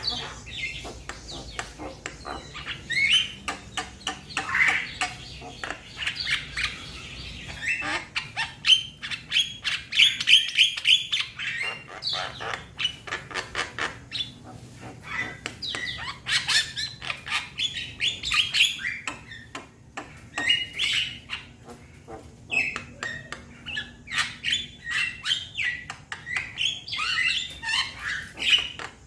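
A young Javan myna calling to its companions: a fast, unbroken stream of harsh chatter, clicks and squawks.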